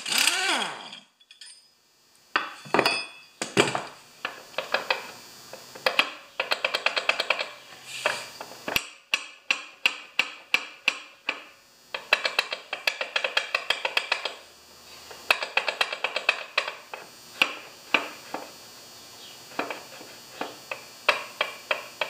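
Ratchet wrench clicking in quick runs, with a few metal knocks, as the blade bolt is worked loose to take the blade off a push mower's crankshaft.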